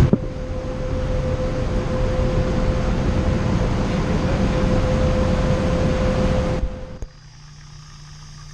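Steady machinery noise with one steady mid-pitched tone running through it, cutting off abruptly about seven seconds in to a much quieter low hum.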